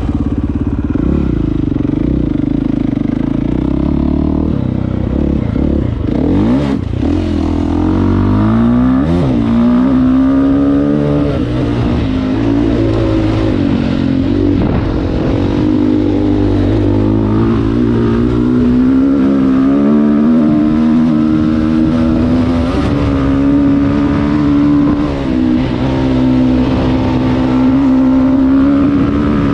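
Dirt bike engine running loud under throttle on a trail, its note dipping and then climbing as the rider accelerates, then holding with small rises and falls. A couple of sharp knocks come through at about seven and nine seconds in.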